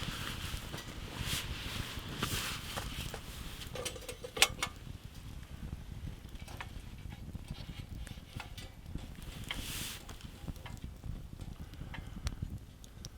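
Wood fire crackling, with scattered small pops and one loud snap about four and a half seconds in.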